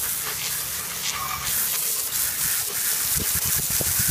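Hose spray nozzle blasting a steady jet of water against a lawn mower to wash it out, with a loud hissing gush.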